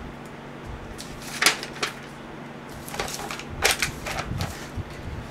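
Sheets of paper and a clipboard being handled and set down on a desk: rustling with a few sharp taps and knocks.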